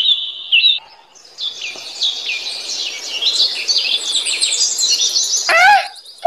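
Forest birdsong ambience: many birds chirping and twittering together over a faint hiss. Near the end comes a short call falling in pitch.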